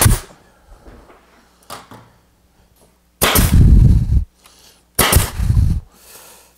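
Grex 18-gauge pneumatic brad nailer firing into plywood: a sharp shot at the start, then two louder shots with a burst of air about two seconds apart, the last as the nailer runs out of brads.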